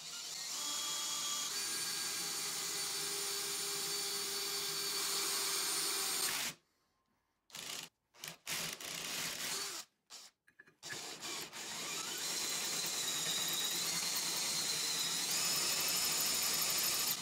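Drill turning a hole saw that cuts into a steel plate: a steady grinding run with a high metallic whine. It stops about six seconds in, starts in a few short bursts, then cuts steadily again for the last six seconds.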